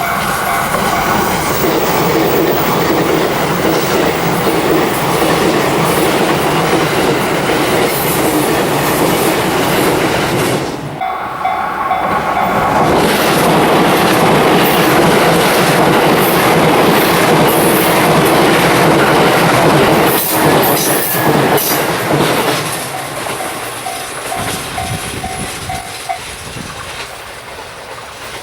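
A Series E353 limited express electric train runs past at speed, its wheels clattering over the rail joints, with the noise easing off near the end. A level-crossing warning bell rings in quick repeated dings that come through at the start, where the train noise dips about eleven seconds in, and again as it fades.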